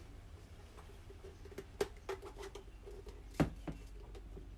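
A few sharp knocks and clicks of intake pipe bends and couplers being handled and pushed together during a test fit, the loudest about three and a half seconds in, over a steady low hum.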